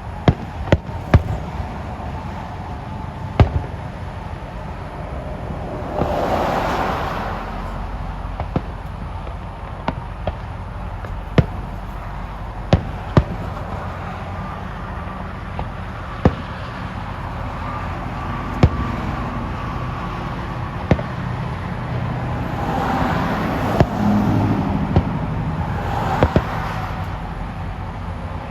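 Fireworks going off: a string of sharp bangs at irregular intervals, about one every second or two, over a low steady rumble. There are two longer swells of noise, one about a quarter of the way in and one near the end.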